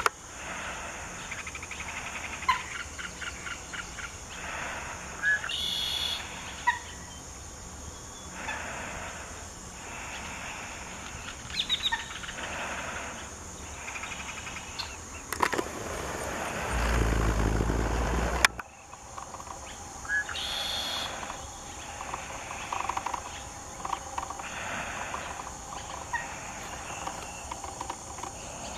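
Scattered bird calls and chirps, short calls and quick call series every second or two, over a steady high hiss. A little past halfway a gust of wind rumbles on the microphone for about two seconds and ends in a sharp knock.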